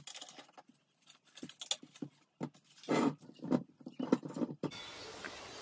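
Fruit being handled on a countertop: irregular soft thumps and rustles as oranges and apples are lifted out of a plastic mesh bag and set into a wire fruit bowl, the loudest thump about three seconds in. A faint steady hiss sets in near the end.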